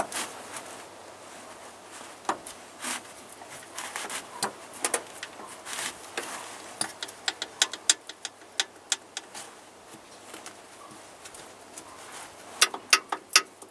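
Sharp clicks and taps from the shift forks inside an opened tractor gearbox being rocked by hand to check them for play. They are scattered at first, then come in a quick run in the middle and a short cluster near the end.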